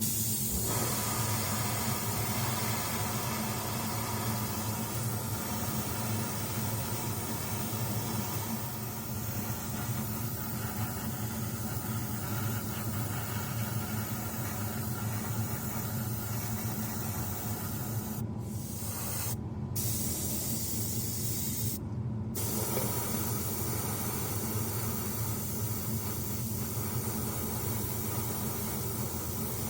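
Airbrush spraying paint onto a plastic model kit, a steady hiss over the low hum of its air compressor. The spray stops briefly three times a little past the middle while the compressor keeps running.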